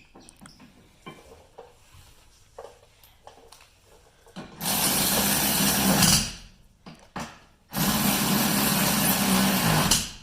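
A handheld power tool runs twice for about two seconds each, driving the two rear brake caliper bolts in before they are tightened by hand. Light clicks of handling come before the first run.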